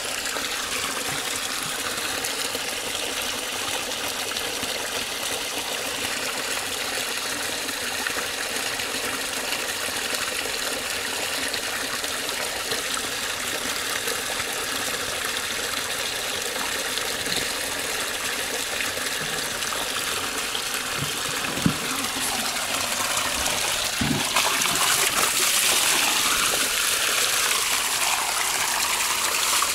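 Water gushing steadily from a culvert pipe into a stream and splashing into a metal basin, growing louder and brighter in the last few seconds. One sharp click sounds about three quarters of the way through.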